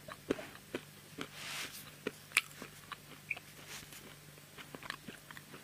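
Faint, scattered clicks and small crackles, with a short soft hiss about a second and a half in.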